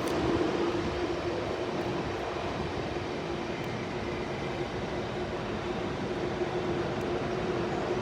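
Railway station platform ambience: a train at the platform giving a steady hum over an even rumbling noise.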